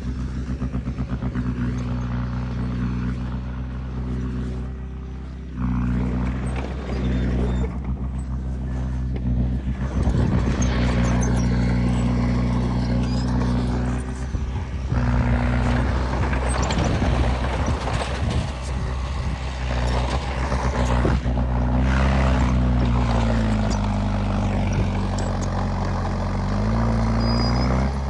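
Komatsu D20P bulldozer's diesel engine running steadily under work, with rough clattering noise through the middle of the stretch. Near the end the engine note sags for a few seconds under load, then picks back up.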